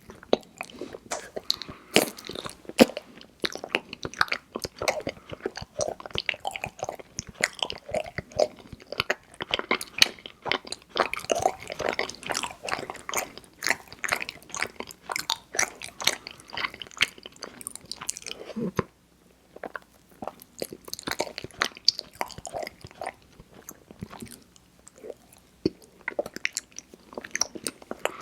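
Close-miked chewing and biting of mochi ice cream: sticky, wet mouth sounds and smacks, with a brief pause about two-thirds of the way through.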